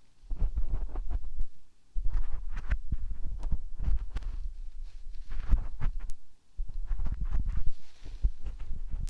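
Ear cleaning right against a binaural microphone's ear: scratchy rubbing and crackling with low rumbling, in a few long passes broken by brief pauses.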